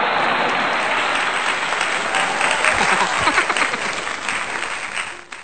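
Crowd applause, with sharper individual claps standing out from about two seconds in; it stops suddenly at the end.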